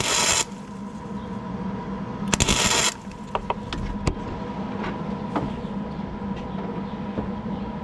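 Flux-core MIG welding arc crackling in two short bursts of about half a second each, one at the very start and one about two and a half seconds in, tacking weld onto a snapped bolt stub to build it up. Between the bursts a steady hum and a few light clicks.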